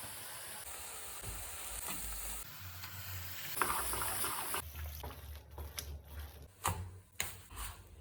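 Pav bhaji sizzling in a hot pan. In the second half, a spatula stirs and scrapes it with many sharp taps and knocks against the pan.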